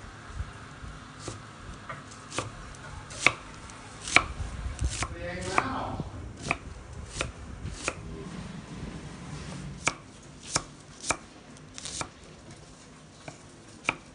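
Kitchen knife chopping vegetables on a wooden cutting board: single sharp knocks at an uneven pace, roughly one a second.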